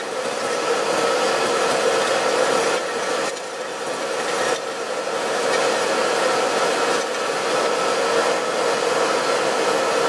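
Hand-held electric hot-air blower running steadily with a constant whirring hum, used to dry freshly rinsed gun steel during rust bluing, with rubbing and scrubbing on the metal over it.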